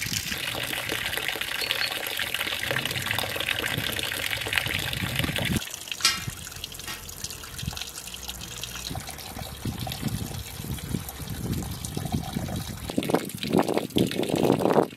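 Water running in a steady stream from a pipe into a concrete trough, with the splashing hiss of the fall. About five and a half seconds in it cuts off sharply, leaving quieter sounds with a single click and light handling noises near the end.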